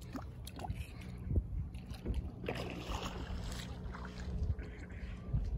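Wind rumbling on the microphone at a lake's edge, with light water sounds and a few small knocks. A louder, noisier gust or splash comes about two and a half seconds in and lasts about a second.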